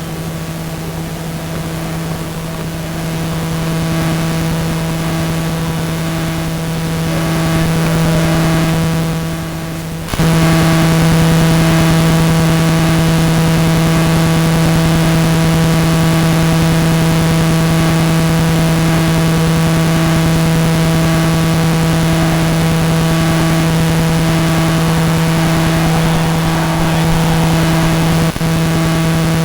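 Steady buzzing hum at one constant pitch, with a brief break and a step up in level about ten seconds in.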